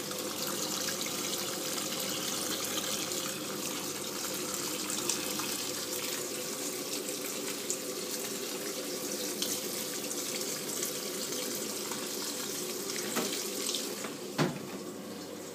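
Samsung 7.5 kg top-load washing machine on its wash cycle: a steady rush of water with a faint steady hum beneath it, and one sharp click near the end.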